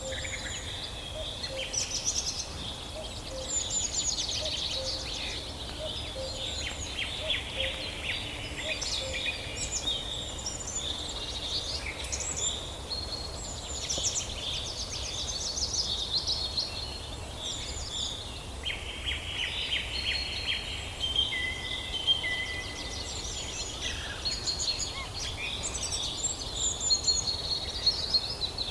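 Several songbirds chirping and singing at once, with overlapping quick trills and short whistled notes, over a low steady rumble.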